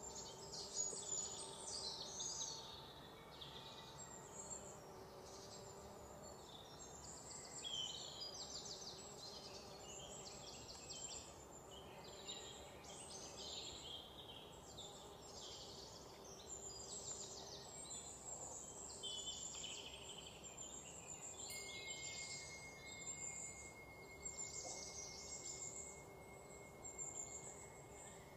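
Outdoor ambience of birds chirping and trilling over and over, faint, over a low steady hiss. About three-quarters of the way through, a thin steady high whistle joins in.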